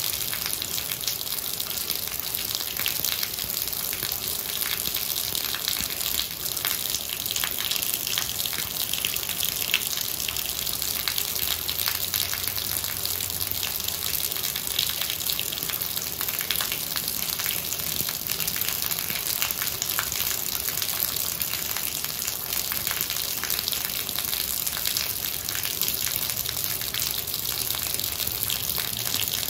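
Heavy rain falling onto puddled asphalt: a steady, dense patter of drops splashing into standing water.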